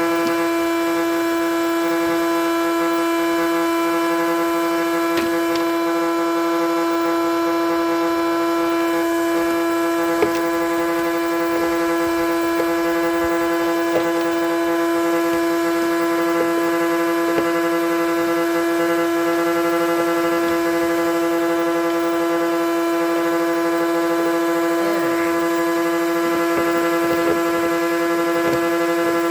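A truck's heater and air-conditioning blower fan running steadily with no filter fitted, a loud constant hum on one pitch. A few faint clicks sound now and then.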